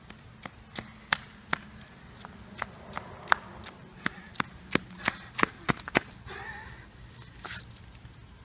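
Flip-flops slapping on asphalt as someone runs: a string of sharp slaps that come quicker and louder, then stop about six seconds in.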